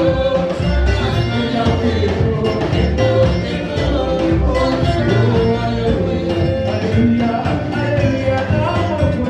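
Live gospel praise-and-worship band playing a steady, upbeat dance groove, with singers over bass and drums.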